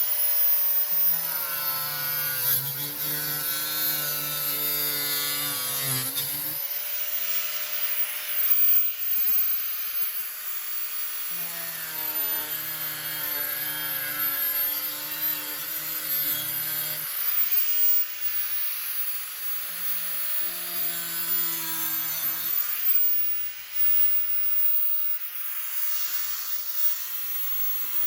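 Electric saw whining steadily while it cuts through plastic bumper trim. It bogs down and drones lower in three cutting passes, about a second in, near the middle, and around two-thirds of the way through.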